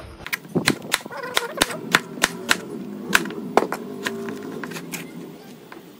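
Kitchen knife slicing an eggplant on a cutting board: a run of sharp, uneven clicks, about three a second, as the blade cuts through and strikes the board.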